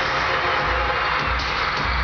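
Loud pop music with a pulsing bass beat played over an arena sound system, under a large concert crowd screaming and cheering, recorded from within the audience.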